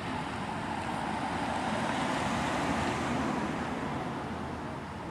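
Road traffic noise: a steady rush of passing cars that swells a little to its loudest about three seconds in, then eases off slightly.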